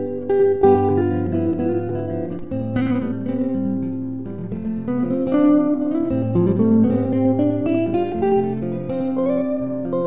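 Background music on acoustic guitar: a melody of short, changing notes over held low bass notes.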